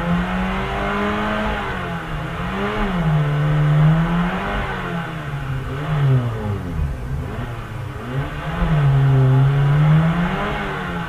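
An old sedan's engine revved up and down repeatedly, its pitch rising and falling over and over.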